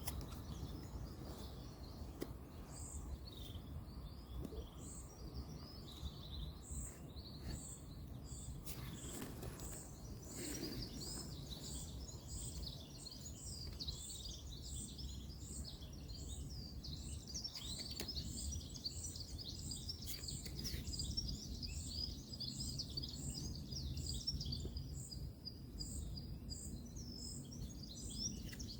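Several small birds chirping and twittering over a steady low rumble of distant road traffic. A short high note repeats evenly about once a second, and the chirping grows busier about ten seconds in.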